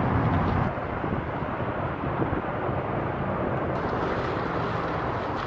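Pickup truck towing a small camper trailer driving past, a steady engine and tyre rumble with road noise.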